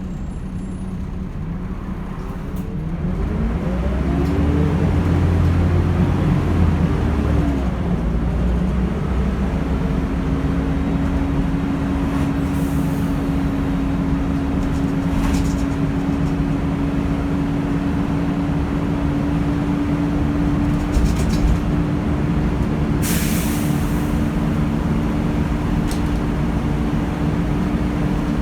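Volvo B10BLE bus's diesel engine pulling away, its note rising over a few seconds, then running steadily with a constant whine. A short hiss of air comes near the end.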